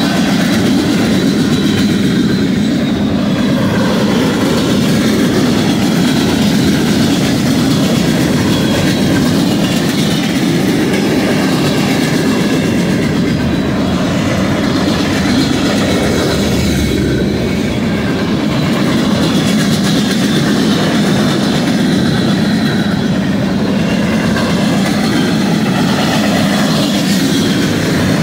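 Freight cars of a passing manifest train, mostly loaded gondolas and coal cars with some boxcars, rolling past close by. Their steel wheels make a steady, loud rumble and clatter on the rails, with a faint thin squeal above it.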